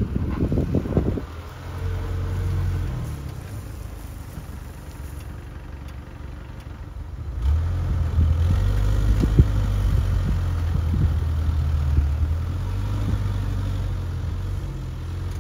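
An engine running at a steady low pitch, getting louder about seven seconds in.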